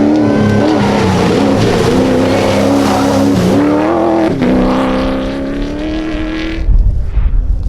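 Rally car engine running hard at high revs over a loud hiss, its pitch dipping briefly and climbing again a few times at the gear changes. About a second before the end the engine sound cuts off abruptly and a low, gusty rumble takes over.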